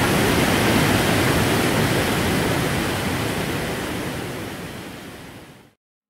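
Whitewater mountain stream cascading down a narrow rock gorge: a loud, steady rush of water. It fades away over the last few seconds and cuts off just before the end.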